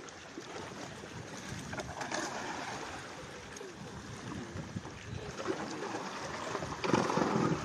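Water splashing and churning as skipjack tuna thrash at the surface inside a fish-corral net being hauled up, growing louder near the end.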